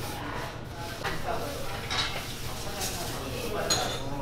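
Restaurant kitchen background: indistinct voices, with a few light clinks and knocks of dishes about two, three and near four seconds in.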